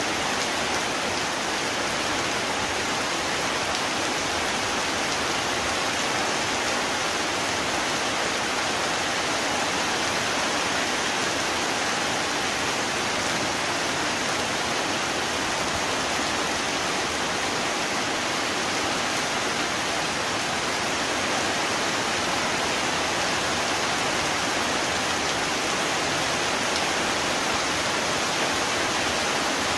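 Rain falling steadily, an even hiss with no breaks and no thunder.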